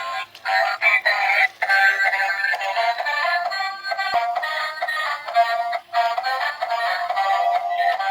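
Tinny electronic music with a synthesized singing voice, with almost nothing in the bass.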